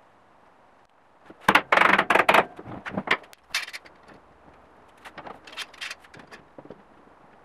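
Steel bar clamps being slid into place and tightened across a wooden frame: a run of metal scraping and clanking with knocks on wood, loudest about a second and a half in, then a few lighter rattles.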